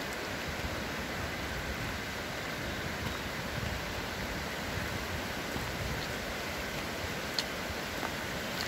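Fast, shallow river rushing over stones and rapids, a steady, even wash of white water.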